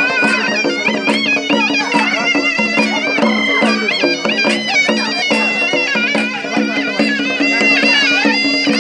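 Live Karbi folk dance music: a reedy wind instrument plays a wavering, ornamented melody over a steady low drone, with drums keeping an even beat.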